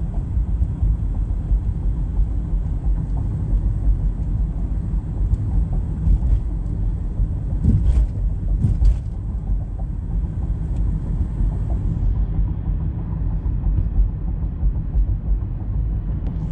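Steady low rumble of a car driving along, heard from inside the cabin, with two short thumps about eight and nine seconds in.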